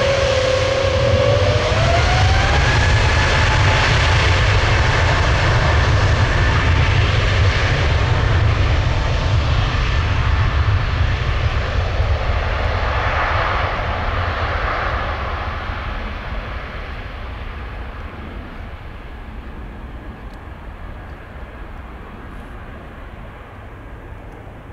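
Airbus A320neo's twin turbofan engines spooling up to take-off thrust: a whine rising in pitch over the first few seconds, then loud steady jet noise. The noise fades as the airliner accelerates away down the runway.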